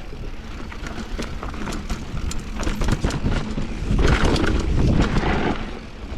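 Mountain bike rolling down a rough bike-park trail: a steady rush of tyre noise with many quick rattling clicks from the bike over the bumps. It grows louder for about a second and a half past the middle.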